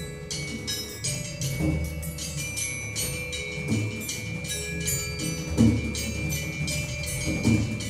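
Percussion quartet playing softly: pitched mallet percussion strikes quick, repeated ringing notes, and a low stroke sounds about every two seconds.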